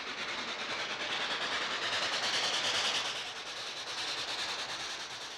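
Steam locomotive hauling passenger coaches past on a curve: a swelling then fading rush of steam and rail noise with a fast, even beat, loudest about two to three seconds in.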